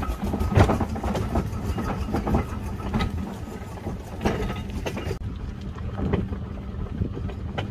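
6-inch scale Burrell compound steam traction engine on the move: irregular sharp knocks and chuffs over a steady low running sound. About five seconds in, the sound turns duller as the high hiss drops away.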